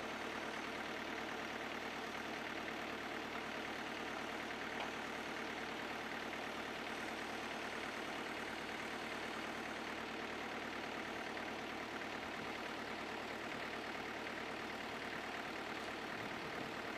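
Engine of a snow-clearing machine running steadily at an even pitch.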